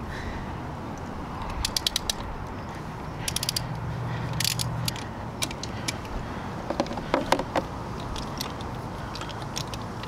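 Socket ratchet clicking in short quick runs while a caravan's 19 mm wheel nut is undone, with a few single metal clinks between.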